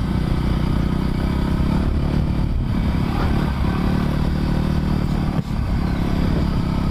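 Voge 300 Rally's single-cylinder engine running steadily under way off-road, with the bike's clatter and a few knocks from the rough, stony track.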